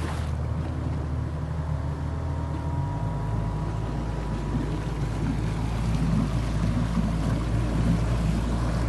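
Outboard motor running steadily as it drives a small aluminium fishing boat across a lake, with water rushing along the hull and wind on the microphone. The low rumble deepens about three seconds in.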